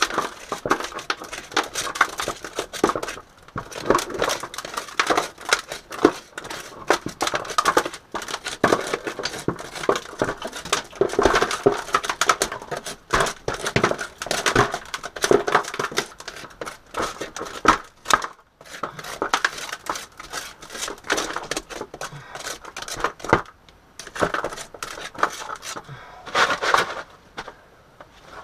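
Gravel and small stones being scraped and raked out with a metal hand tool into a plastic gold pan: steady scraping and clattering of rock, with a couple of short pauses.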